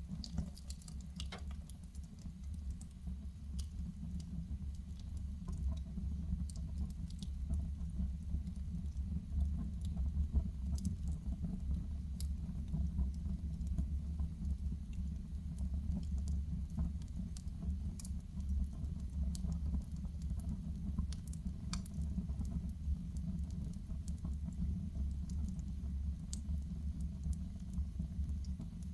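Wood fire burning in a fireplace: irregular sharp crackles and pops over a steady low rumble of the flames. It swells over the first few seconds, then holds steady.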